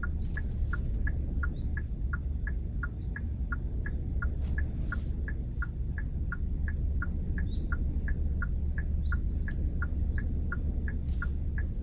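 Kia K3's turn-signal indicator ticking steadily in the cabin, about four ticks a second alternating between two slightly different pitches. A low, steady engine and road hum runs underneath.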